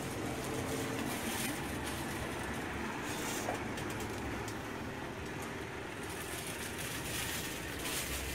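Steady street and shop ambience with a low rumble of traffic, with no distinct sound standing out.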